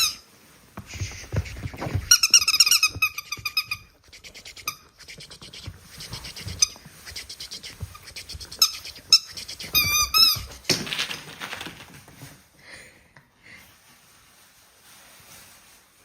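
Pet dog whining and squealing excitedly in high-pitched, wavering cries, a quick run of them a couple of seconds in and another about ten seconds in.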